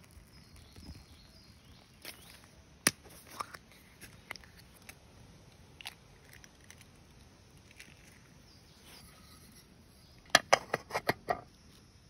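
Aluminium camping pot and a canister gas stove being handled: scattered clicks and knocks, then a quick run of about six sharp clicks about ten seconds in. Faint birdsong behind.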